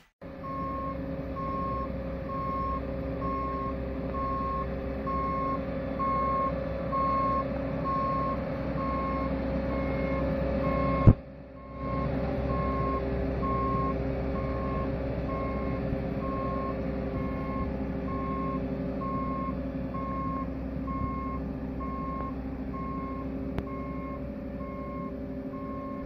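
Hamm HD 110i tandem asphalt roller's diesel engine running steadily, with its reversing alarm giving a continuous run of evenly spaced beeps, the sign that the roller is travelling in reverse. A sharp click and a momentary dropout come partway through.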